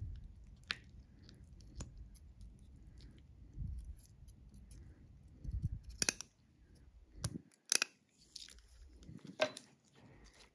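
Metal surgical instruments, a needle driver and tissue forceps, clicking sharply as they are opened, closed and handled, over low handling and rubbing noise. The clicks come irregularly, about half a dozen in all, and the loudest fall a little past the middle.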